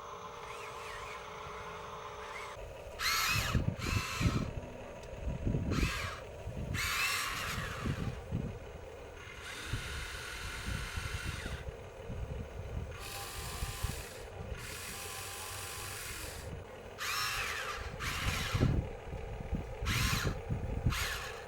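Electric motors and gearing of Huina radio-controlled construction models whining in about a dozen short bursts, each rising and falling in pitch, over a steady low hum.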